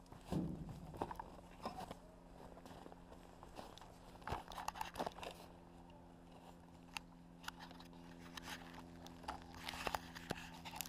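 Handling noise as the quadcopter and its mounted camera are held and turned: scattered clicks, knocks and rubbing against the microphone, over a faint steady hum.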